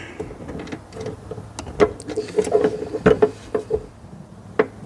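Hands working with the headlight wiring while two wires are tied together: irregular sharp clicks and scraping, with a quick run of clicks in the middle and one sharp click near the end.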